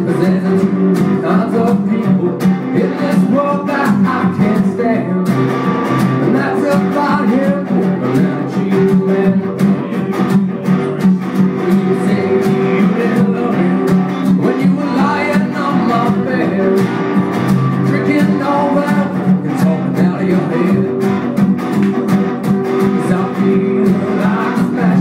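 Two guitars, an orange archtop and an acoustic, strummed and picked together in a steady blues rhythm during an instrumental stretch of the song.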